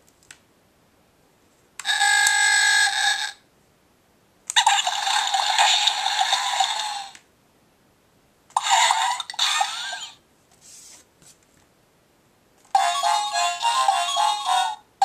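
Electronic sound clips from a Play-a-Sound book's button-pad sound module, played one at a time with silent gaps between: first a steady chime-like tone, then two noisier sound effects, and near the end a bouncy tune of quick repeated notes.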